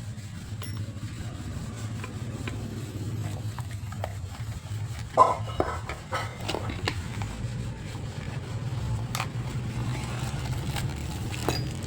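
Scattered sharp clicks and clinks of metal parts being handled, over a steady low hum; the loudest click comes about five seconds in.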